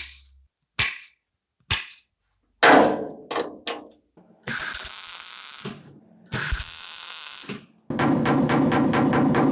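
Workshop metalworking sounds: a few sharp knocks, then two hissing bursts of about a second each, then a fast, even rattle that begins near the end.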